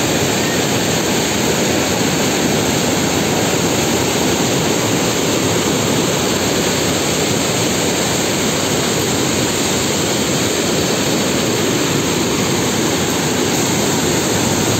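Ravana Falls running in full flood after heavy rain: a loud, steady rush of falling water with no let-up.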